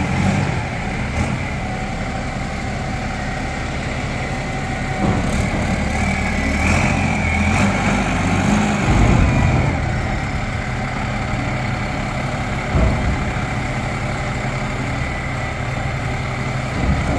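Diesel engine of a Nippon Sharyo DH408-95M pile driver idling steadily, with a few separate knocks and a brief louder stretch about halfway through.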